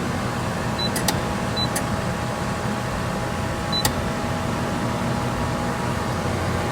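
Pool filter pump motor running with a steady hum, just switched on from the Hayward ProLogic controller. A few short high beeps and sharp clicks come from working the control panel.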